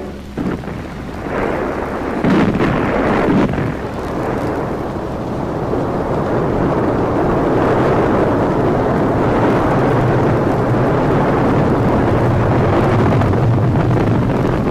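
A heavy gun salvo boom in the first couple of seconds, then the roar of a rocket launch that builds over the next few seconds and holds steady.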